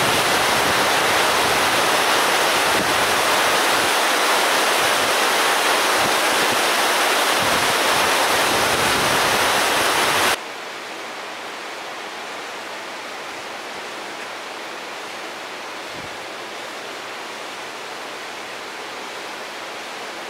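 Steady rushing of water, which cuts off suddenly about ten seconds in to a much quieter, even hiss.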